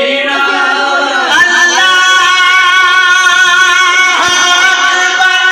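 A voice singing a noha, a mourning lament, in long held, wavering notes.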